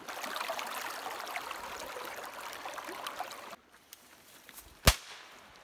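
Shallow creek water running over stones. It cuts off abruptly, leaving a quiet background, and a single sharp crack follows near the end.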